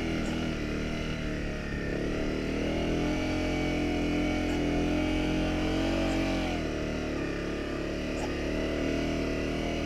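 Honda CRF250 Rally's single-cylinder four-stroke engine running steadily as the bike is ridden through soft sand. The engine note rises a little about three seconds in and drops back about six and a half seconds in.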